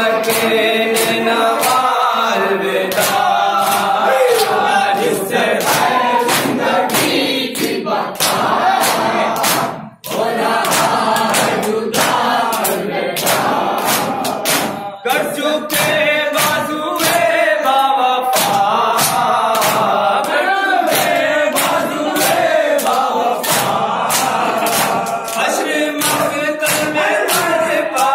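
Men singing a noha, a Shia mourning elegy, together through microphones. It is set to steady beats of palms striking chests in matam, about two a second.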